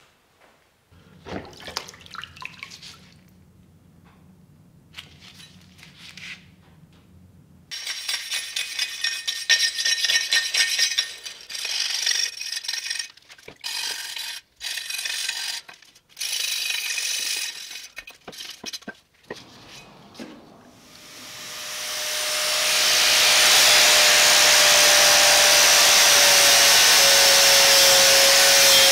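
Faint handling sounds at first. Then loud scrubbing on the wet steel cleaver in stop-start runs with short gaps. About two-thirds of the way through, an angle grinder spins up and runs loud and steady with a steady whine, its sanding flap disc grinding the cleaver's steel around the old weld.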